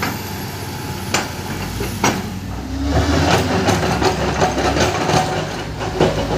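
Diesel earthmoving machinery (hydraulic excavator and wheel loader) running steadily under sharp metallic clanks and knocks as the excavator bucket works rock and mud. From about three seconds in comes a busier rattling clatter of stones.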